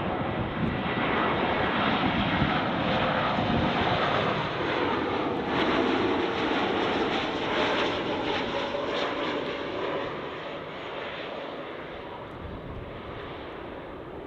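Airliner passing low overhead on short final approach. Its engine noise builds, is loudest through the middle, and fades after about ten seconds.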